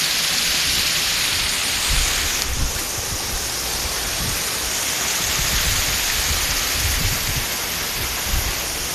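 Waterfall rushing: a steady hiss of falling water that turns a little duller about two and a half seconds in, with irregular low thuds under it.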